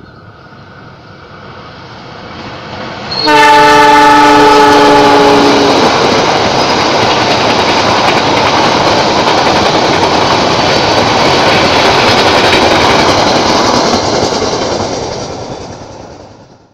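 A passenger train led by a GE CM20EMP (CC 206) diesel-electric locomotive approaching and passing close by. About three seconds in the locomotive sounds one horn blast of several notes at once, lasting about two and a half seconds. The coaches then go by in a loud steady rush with fast clicking for about ten seconds before the sound fades out.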